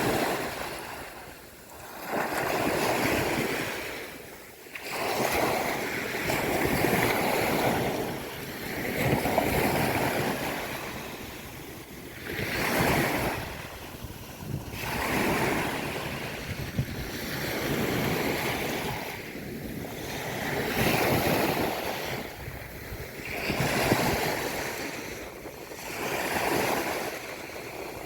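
Sea waves breaking and washing onto a beach, the surf surging and falling back about every two to three seconds.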